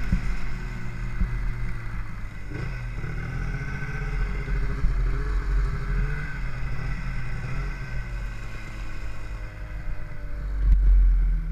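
Snowmobile's two-stroke engine running steadily, its pitch wavering and dipping slightly, with low wind rumble on the microphone that swells near the end.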